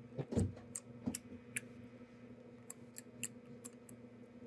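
Sticky glue slime being kneaded and poked by hand in a ceramic bowl, still very sticky: a soft low squish near the start, then irregular sharp clicks and pops as the fingers pull free of the slime.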